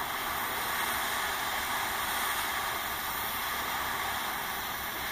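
Butane torch lighter burning with a steady jet-flame hiss, held on a metal rearview mirror bracket to heat it and loosen its adhesive.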